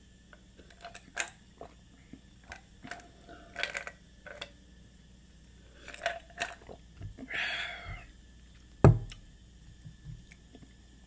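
Close-miked eating sounds of fried yam and egg sauce: scattered chewing clicks and lip smacks, a longer noisy mouth sound about seven seconds in, and one heavy low thump a little later.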